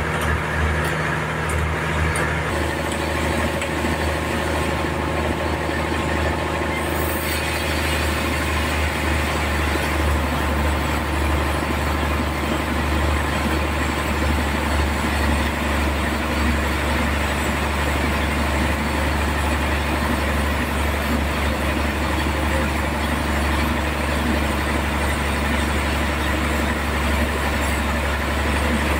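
Sawmill running steadily with a deep, even hum, a higher hiss joining about seven seconds in.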